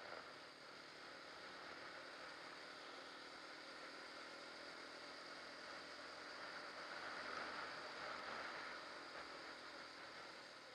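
Faint, steady rushing noise of a quad bike on the move, wind and engine blended with no clear engine note, growing a little louder about seven to nine seconds in.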